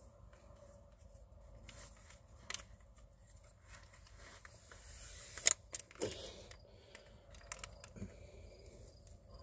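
Quiet handling noise: scattered small clicks and rattles, the sharpest a little past halfway.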